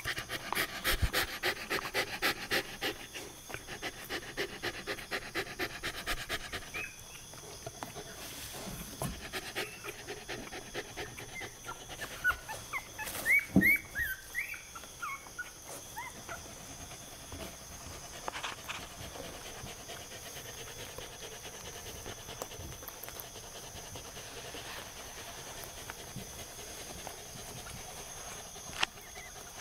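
Newborn Miniature Australian Shepherd puppy breathing quickly in a rhythmic pulse, about three breaths a second, for the first several seconds. About halfway through comes a short run of high, thin squeaks.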